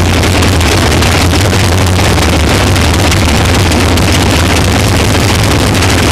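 Sprint car's V8 engine running loud and steady at low speed after the race, heard through an on-board camera mounted in the car, with a strong low engine hum under a wide noisy rush.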